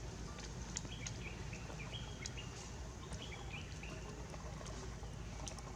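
Outdoor ambience: a run of short, high chirps in quick succession, over a steady low rumble with scattered sharp clicks.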